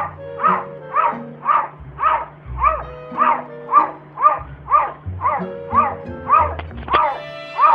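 Cat giving short, dog-like barks, about two a second.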